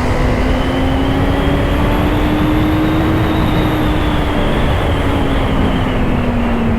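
Honda CBR650R's inline-four engine running at a steady cruise under way. Its note rises slightly in pitch, then eases off near the end, over a constant rushing noise.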